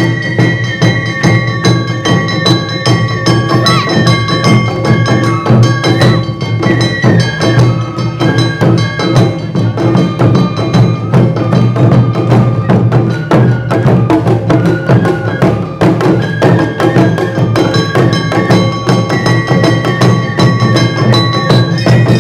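Awa Odori dance music played by a festival ensemble: a bamboo flute melody of held notes stepping between pitches, over steady taiko drumming and the metallic strikes of a small hand gong (kane).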